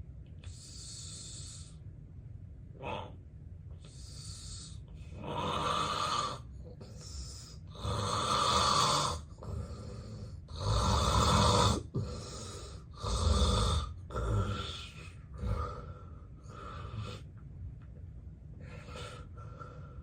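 Heavy snoring and noisy breathing of a man with severe obstructive sleep apnea: a run of separate snores, loudest around the middle, then shorter, fainter breaths near the end.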